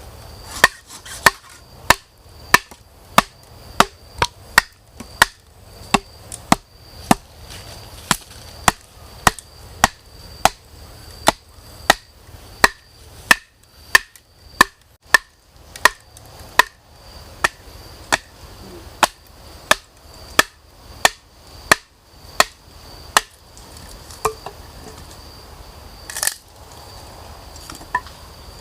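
Wood being chopped with a blade, strokes coming steadily about twice a second, then thinning out to a few scattered strikes near the end. A steady high-pitched insect drone runs underneath.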